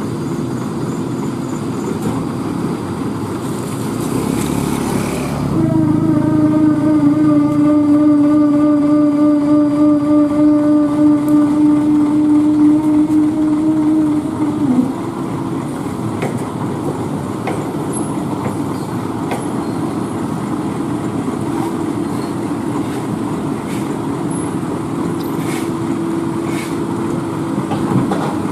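Heavy diesel machinery running steadily. About four seconds in there is a brief hiss, then a loud steady whine for about nine seconds that stops with a slight dip in pitch, followed by a few scattered clanks.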